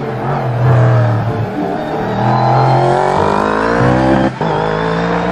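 Sports-prototype race car's engine running at high revs on a circuit, its pitch climbing as it accelerates, with a short break just after four seconds in before it pulls again.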